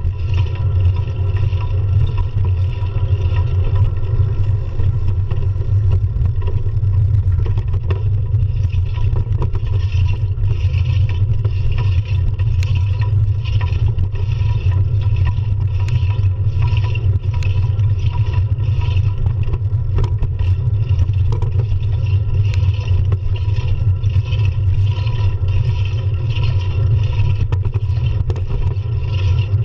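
Steady low wind rumble on a bicycle-mounted action camera's microphone while riding, with faint tyre and street noise beneath it.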